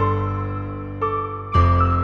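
Slow background music played on a keyboard, sustained chords with single notes entering about once a second and a new low chord struck about one and a half seconds in.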